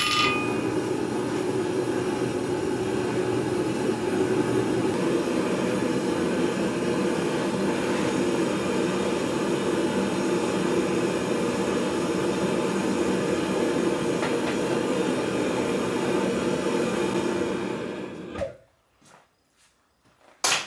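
Gas forge burner running with a steady, even noise, which dies away about eighteen seconds in and leaves near silence with a few faint clicks. At the very start the ring of the last hammer blow on the anvil fades out.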